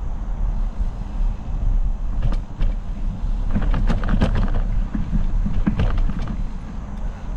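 Mountain bike rolling along a dirt forest trail: a steady low rumble of tyres and wind on the microphone, with a run of sharp rattling clicks about halfway through and a few more a little later.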